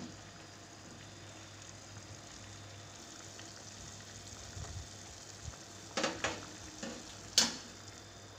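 Vegetable soup with chicken bones simmering in a metal pot on a gas stove, a steady low hiss. About six seconds in come a few short, sharp clicks, the loudest a little past seven seconds.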